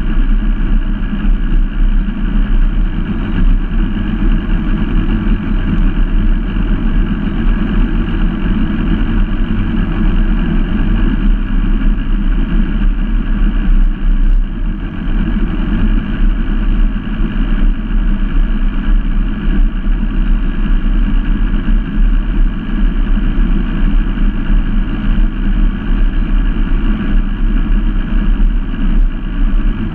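Mercury Racing outboard motor on an Allison GrandSport running steadily at low speed, close to the microphone. Its steady note stays even, with no revving.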